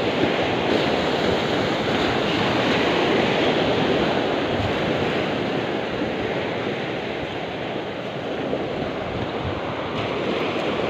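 Small sea waves breaking and washing up the beach: a steady surf rush that swells in the first few seconds, eases in the middle and builds again near the end.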